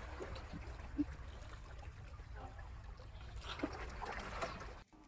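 Faint wet mouth sounds of a man biting and chewing a thick slice of raw salmon, with small smacks over a steady low background noise; it cuts off abruptly just before the end.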